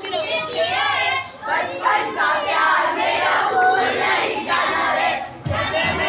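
A crowd of children's voices raised together, loud and overlapping, with high-pitched calls wavering up and down.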